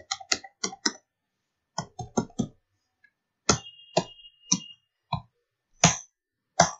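Computer keyboard typing: single sharp keystrokes in short quick runs of three or four, with pauses of up to a second between runs.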